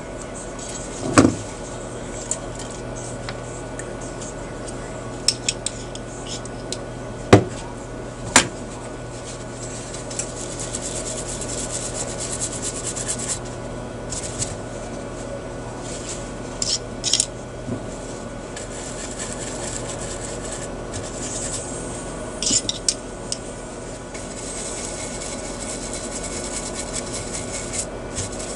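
Scrubbing and wiping at the solder side of a circuit board with a small tool and a tissue, a rough rubbing, scratching sound in uneven bursts. It is preceded by a few sharp clicks and knocks in the first nine seconds.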